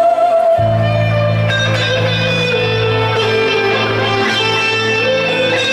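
Band music led by a plucked electric string instrument, over a steady held bass line.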